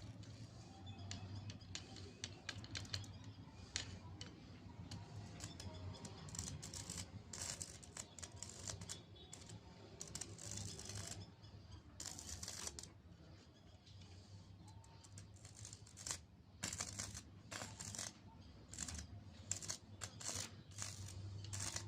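Irregular clicks, snips and scrapes of hand work on wiring, over a steady low hum.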